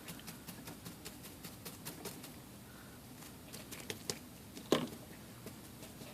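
Light scattered clicks and taps of small motor parts being handled and cleaned by hand, with one sharper click nearly five seconds in.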